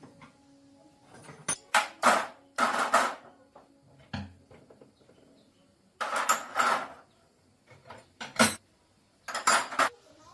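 Metal tools and parts clinking and clattering in several short bursts, with quiet gaps between them.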